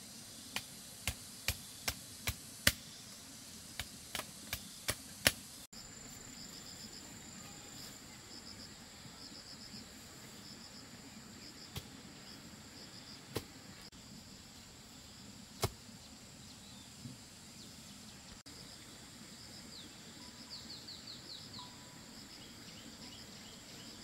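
Sharp knocks of a hand tool striking at the base of a bamboo pole, about ten in quick succession, then a few scattered knocks. Insects chirp behind them with a steady high buzz.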